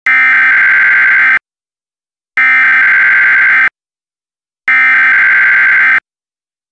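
Emergency Alert System SAME header: three identical bursts of harsh, warbling two-tone digital data, each about a second and a quarter long with about a second of silence between them. These bursts open a new alert.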